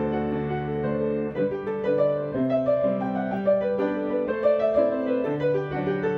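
Instrumental keyboard music: a held chord, then a slow line of notes changing about every half second from a little over a second in.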